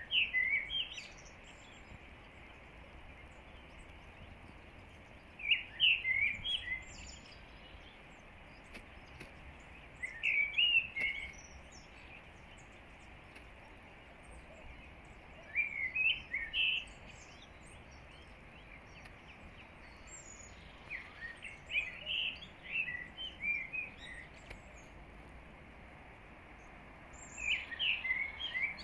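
Common blackbird singing: six fluting song phrases roughly five seconds apart, each ending in faint high twittering notes, over a steady background hiss.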